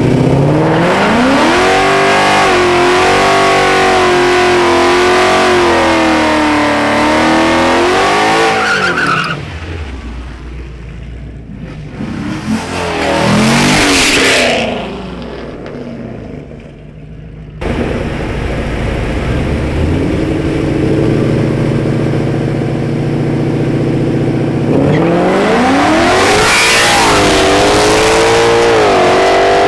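Mustang engines revving hard, with a car accelerating loudly past about a dozen seconds in. Near the end, engine pitch climbs and drops back in steps as a car pulls hard through its gears.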